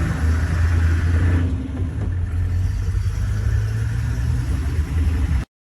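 Safari game-drive vehicle engine running steadily under load as it climbs a hill on a bumpy dirt track, a continuous low rumble. It cuts off suddenly near the end.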